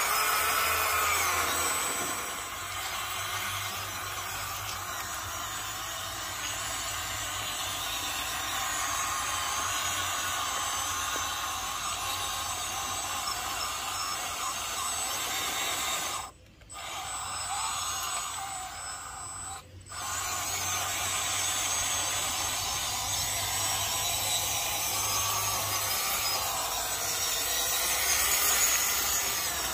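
WPL B16 6x6 RC truck's small electric motor and gearbox whining as it drives through mud, the pitch rising and falling with the throttle. The sound drops out briefly twice, a little past the middle.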